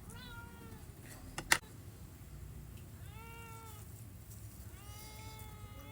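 A cat meowing three times: a short call at the start, one about halfway through and a longer, drawn-out one near the end. A single sharp click about a second and a half in.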